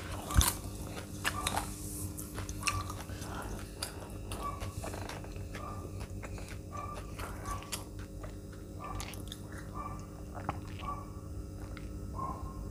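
Close-miked eating: a sharp crunching bite about half a second in, then steady chewing and mouth sounds. Near the end come sips from a glass of mango lassi.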